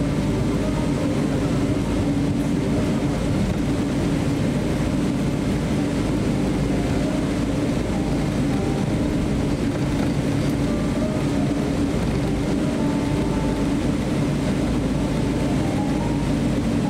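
Cabin noise of a Boeing 777-300 taxiing: a steady low drone from the idling engines and the rolling airframe, heard from inside the cabin.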